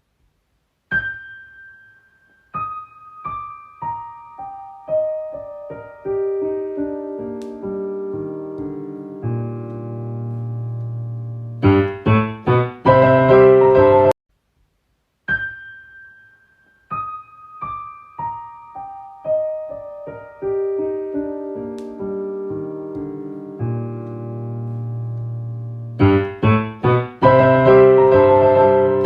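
Solo piano music: a phrase of single notes stepping down from high to low, ending in a quick run of loud, dense chords. It breaks off briefly about halfway through and then repeats the same phrase.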